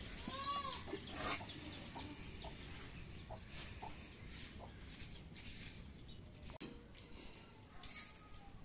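Domestic chicken calling: one arching call about half a second in, then several short clucks over the next few seconds. There are light knocks about a second in and near the end.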